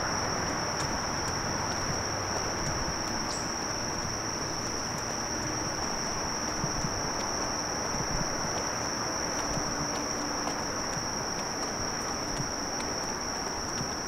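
Steady, unbroken high-pitched drone of an insect chorus from the surrounding woods, over a low even background hiss.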